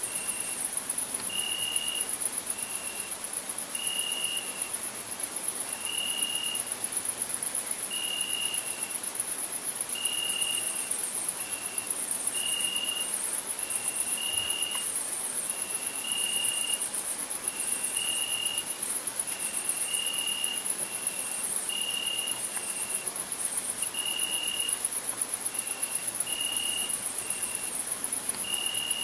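Crickets singing: a steady, very high-pitched pulsing trill, with a lower short chirp repeating about once a second.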